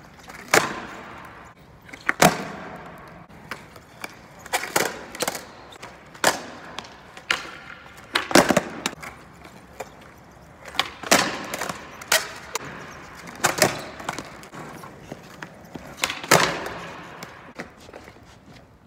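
Skateboards on paving stones during flatground tricks: sharp tail pops and wooden board clacks and landings, several times over, with wheels rolling across the pavers between them.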